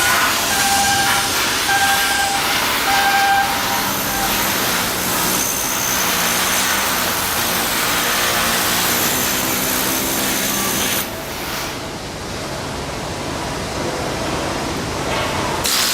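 Shipyard construction work noise: a repeating electronic beep for the first few seconds, then a steady loud hiss with a low hum under it, which drops in level suddenly about eleven seconds in.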